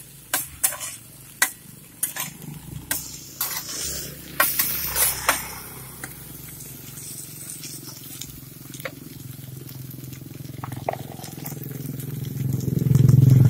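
A metal spatula scraping and clicking against a flat iron griddle while batter cakes sizzle on it, with a dozen or so sharp scrapes in the first five seconds and then quieter sizzling. Near the end a vehicle engine grows loud.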